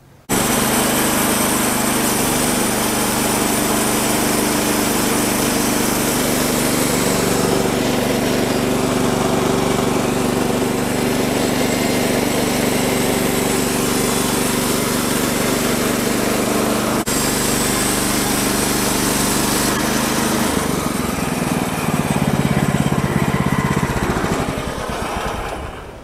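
Woodland Mills HM-126 portable bandsaw mill running under power as its band blade saws along a white oak log: a loud, steady engine drone. About 20 seconds in the tone shifts, and the sound falls away shortly before the end.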